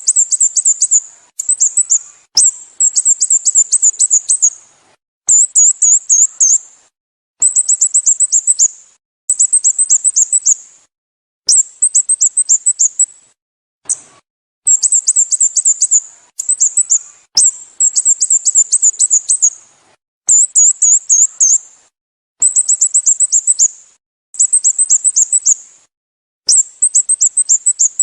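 Sooty-headed bulbul calling: short bursts of rapid, very high chirping notes, repeated roughly every two seconds with clean silences between them.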